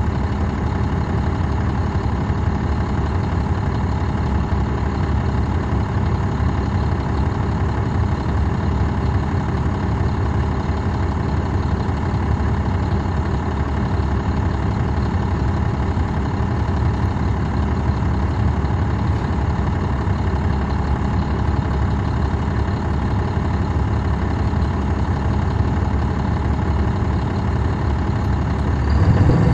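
Caterpillar C13 ACERT diesel engine of a NABI 40-SFW transit bus idling steadily, heard from inside at the rear of the bus. The engine grows louder just before the end.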